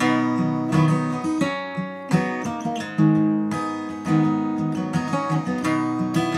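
Acoustic guitar music, a new chord sounded about once a second.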